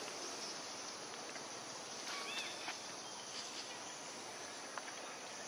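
Faint forest ambience: a steady high hiss, with a short high arched squeak about two seconds in and a few faint ticks.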